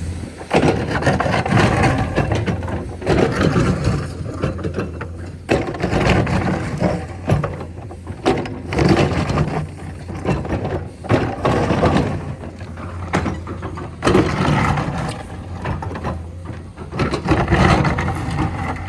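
Heavy road-construction machine laying blacktop: its diesel engine runs with a steady low hum, under irregular scraping and clanking bursts every second or two.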